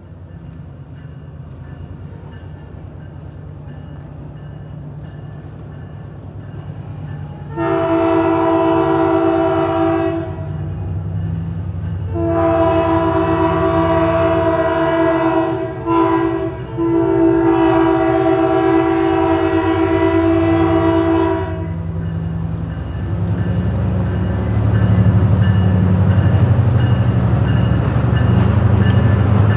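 EMD SW900 switcher locomotive blowing its horn in the long, long, short, long pattern of a grade-crossing warning, over the steady rumble of its diesel engine. In the last few seconds the engine grows louder as the locomotive draws close, with light clicks of wheels on the rails.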